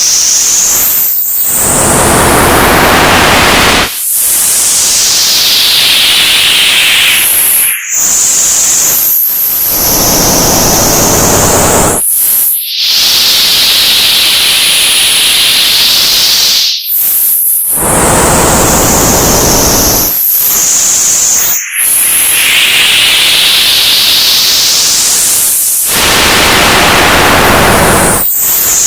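Old analog TV static: a loud, steady hiss whose tone sweeps down and back up, cutting out briefly every few seconds.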